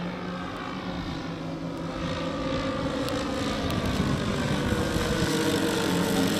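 Giant-scale radio-controlled B-17 model's four propeller engines droning as it flies over. The drone grows louder from about two seconds in as the plane comes overhead, with the engine pitch sliding slowly.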